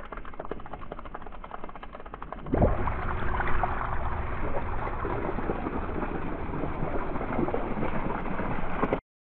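Water pumped by a Seaflo 600 GPH automatic bilge pump pours from the pump box's hose-barb outlet, at first as a thin splashing stream. About two and a half seconds in it becomes a loud, full gushing jet that sprays and splashes steadily, then cuts off suddenly near the end.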